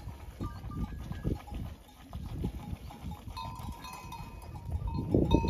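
Goats and sheep moving about in a pen, with a livestock bell clinking from about three seconds in.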